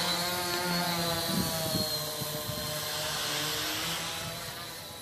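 Tricopter's three electric motors and propellers buzzing in flight, the pitch wavering with throttle changes as it climbs away. The buzz grows fainter near the end.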